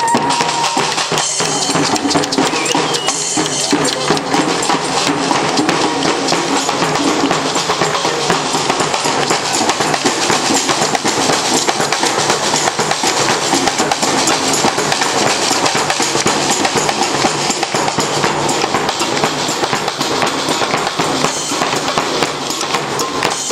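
Fanfare brass band playing with drums, loud and without a break.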